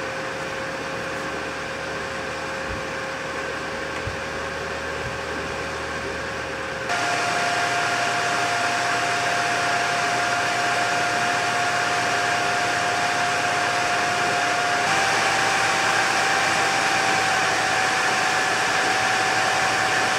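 AMD FX-8320 stock CPU cooler fan running with a steady airy whir and a clear whine. About seven seconds in, and again about fifteen seconds in, the whine steps up in pitch and the fan gets louder: it is spinning faster as the CPU heats from 50 to 65 to 75 °C.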